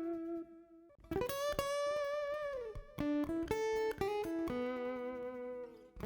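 Solo blues guitar playing single-note phrases: plucked notes ring out with slight vibrato, and a held note slides down in pitch about two and a half seconds in.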